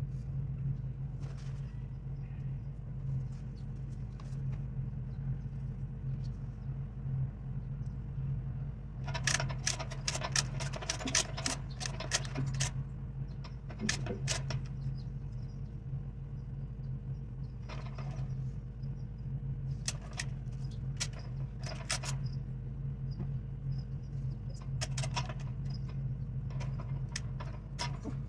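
Chain hoist's metal chain rattling and clicking in short bursts as it is pulled hand over hand, the busiest run about nine to twelve seconds in, over the steady hum of an idling engine.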